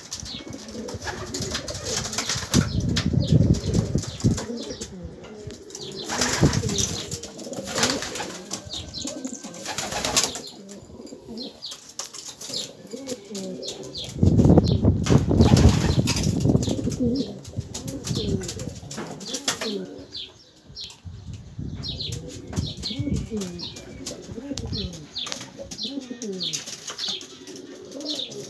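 Domestic pigeons in a loft: several bursts of wing flapping, the loudest a little past the middle, with pigeons cooing between them.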